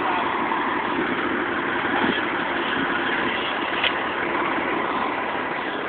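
Fire truck engines idling steadily, a constant mechanical drone with a faint tick about four seconds in.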